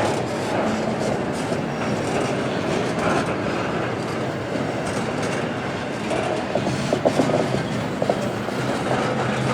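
Freight train cars rolling past, their wheels clacking over the rail joints in a steady rumble, with a cluster of sharper clacks about seven seconds in.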